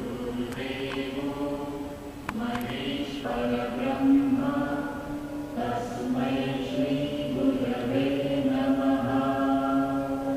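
Slow devotional chanting of a mantra, sung in long held notes at a near-steady pitch, each note changing every second or two.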